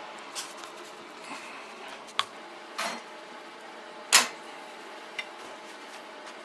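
A few scattered sharp metal clicks and knocks from a welding clamp being handled against steel clamped in a bench vise, with a short scrape about three seconds in and the loudest knock about four seconds in.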